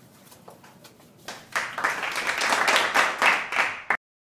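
Hand-clapping applause, starting about a second in and cutting off abruptly near the end.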